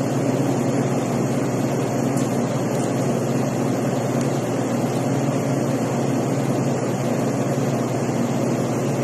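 Steady hum and hiss of a running wall-mounted split air conditioner, with a low drone.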